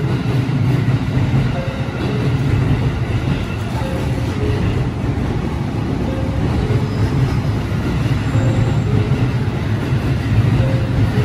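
JR E531 series electric train pulling into the platform, its cars rolling past with a steady, deep rumble of wheels on rail.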